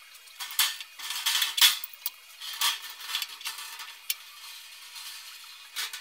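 Thin sheet metal scraping and clinking against a box and pan brake as a freshly bent piece is slid out and handled: irregular light metallic clicks and rasps, busiest in the first two seconds and tapering off.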